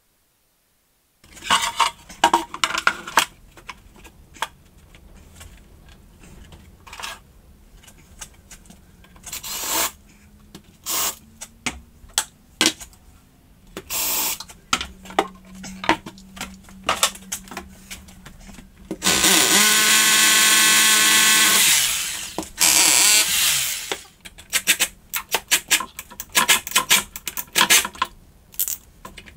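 Knocks and clatter of wood and tools being handled, then about 19 seconds in a Metabo cordless drill-driver runs for about three seconds, its pitch rising and then falling away, followed by a shorter burst.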